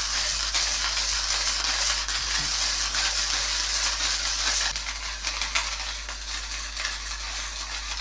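Hand-cranked Hario Skerton ceramic burr coffee grinder crushing coffee beans, a steady gritty crunching rattle. It grows quieter over the last few seconds as the roughness goes out of the grind: the beans are nearly all ground.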